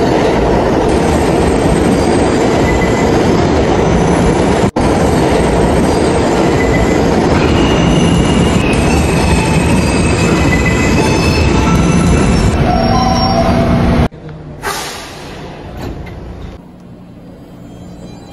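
Subway train running on its rails: a loud, steady rumble and rattle with thin, high wheel-squeal tones, broken by a split-second gap about five seconds in. About fourteen seconds in it cuts off sharply, leaving a much quieter noise.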